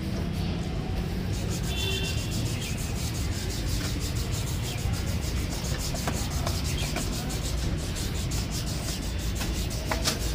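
Hands handling metal engine parts on a motorcycle, rubbing and scraping as a side cover is fitted by the starter motor, with a few light clicks. A steady low background rumble runs throughout.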